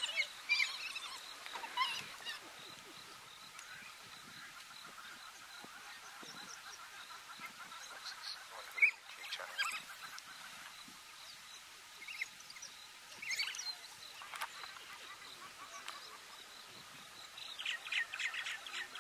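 African wild dogs giving their high-pitched twittering contact calls: short chirps in scattered bursts, busiest near the start and again near the end. There is one sharp click about nine seconds in.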